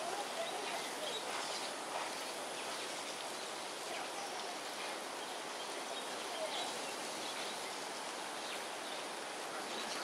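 Steady hiss of rain and rushing floodwater, with a few faint short chirps now and then.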